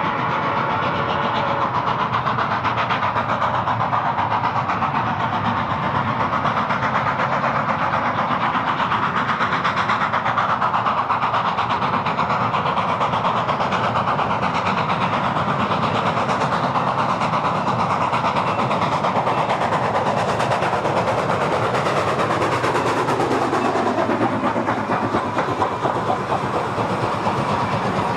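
Milwaukee Road 261, a 4-8-4 Northern-type steam locomotive, running past with its passenger train in a run-by: a loud, steady rumble and clatter of the engine and cars on the rails, with a tone that falls in pitch about twenty seconds in as it goes by.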